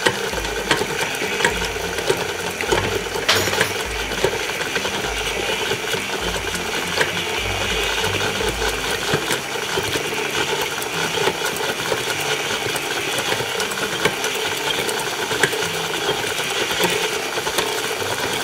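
KitchenAid Classic tilt-head stand mixer running steadily, its motor and gears turning the beater through a sticky enriched yeast dough in the steel bowl, with many small ticks.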